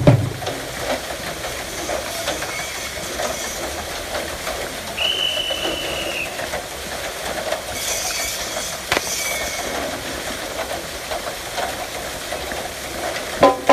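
Steady clattering and rattling of a bull-driven Persian wheel (rahat) and the wooden-and-iron rig that the bulls drag round the well at a run. There is a high whistle-like tone about five seconds in and a sharp knock a few seconds later.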